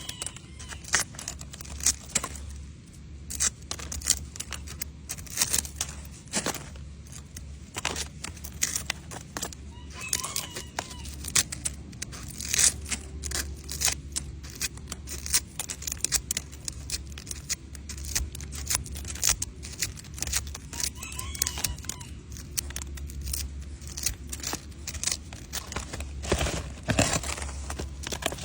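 Dry leaves crackling and clicking as they are handled and picked with tweezers, a fast irregular patter of sharp clicks over a steady low hum.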